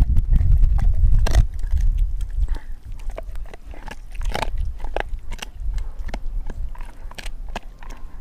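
Doberman gnawing on a raw frozen pig's foot: irregular crunches and wet clicks of teeth on bone and frozen meat. A low rumble lies under the first second and a half.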